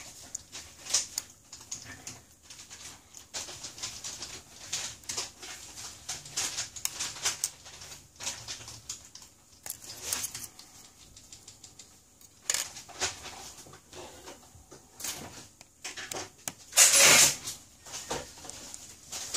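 Small irregular clicks and scrapes of tweezers and a thin pry tool against a smartphone's opened insides and flex-cable connectors, with a louder, longer scrape or clatter about 17 seconds in.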